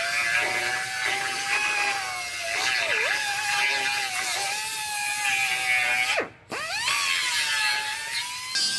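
Cut-off tool's abrasive wheel cutting through a steel truck frame rail with a steady high whine that sags now and then under load. About six seconds in it is let off, winds down and stops, then spins back up and cuts on.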